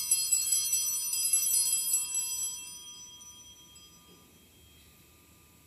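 Altar bells shaken at the elevation of the chalice. Several high ringing tones jangle together for about two and a half seconds, then ring out and fade by about four seconds in.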